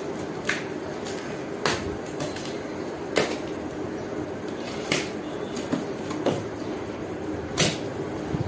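Cardboard box being opened: a blade slitting packing tape and the flaps pulled apart, giving about seven sharp knocks and scrapes of cardboard over a steady low background hum.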